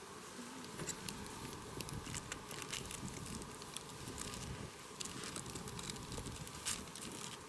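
Wood campfire crackling: scattered small pops and clicks.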